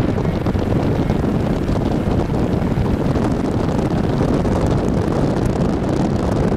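Steady wind rush and road noise from a moving car, with wind buffeting the microphone.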